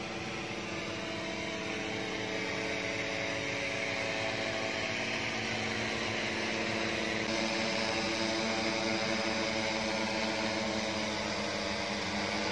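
Propellers of a custom heavy-lift search-and-rescue multirotor drone buzzing as it hovers, a steady droning tone over a rushing hiss that slowly grows louder as the drone comes closer, with a shift in the propeller pitch about seven seconds in.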